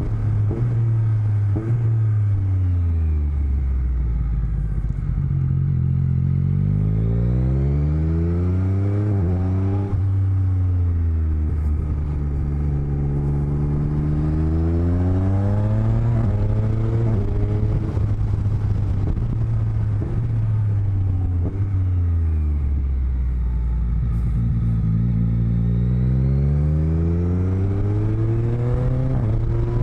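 Motorcycle engine heard from inside the rider's helmet, its pitch climbing and falling several times as the bike accelerates and slows, with steady stretches between.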